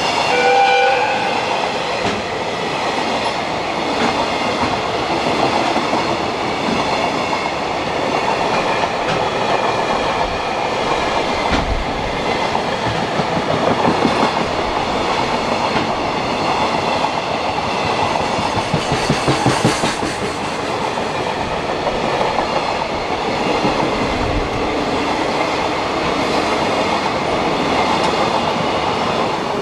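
Container freight train's flat wagons rolling past, wheels clattering rhythmically over rail joints with a steady rumble. A brief horn-like tone sounds in the first second.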